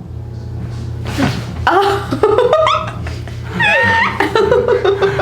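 High-pitched giggling and laughter over background music, starting a little over a second in.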